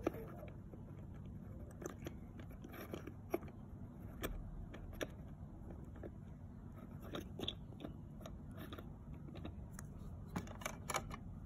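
Light plastic clicks and taps of a small toy figure and a toy seesaw being handled on a plastic playset, scattered irregularly with a quick cluster near the end, over a low steady room hum.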